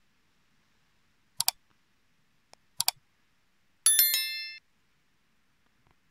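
Subscribe-button animation sound effects: a quick double mouse-click, a second double click about a second and a half later, then a short bell notification ding struck twice, ringing for about half a second.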